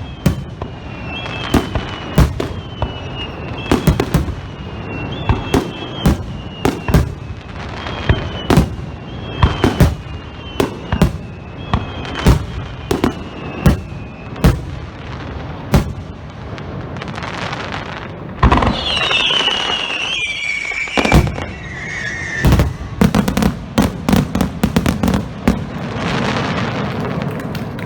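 Starmine fireworks barrage: shells bursting about once a second, many with a short high whistle just before the burst. Past the middle there is a louder cluster of shrieking whistles, then a fast run of bursts near the end.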